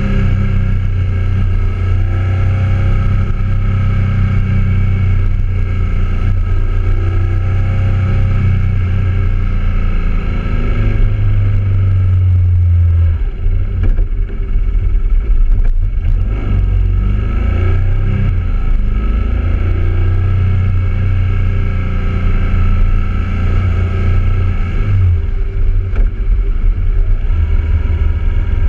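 BMW motorcycle engine running under way, heard from a camera on the bike itself, its note shifting abruptly about 13 seconds in and again near 25 seconds.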